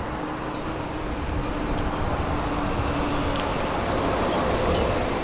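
Street traffic noise: a steady rumble of vehicles going by, growing louder about a second in.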